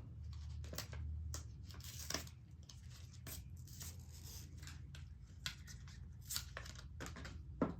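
Unboxing handling noises: packaging and plastic wrapping rustled and torn, with scattered light clicks and taps and a sharper knock near the end.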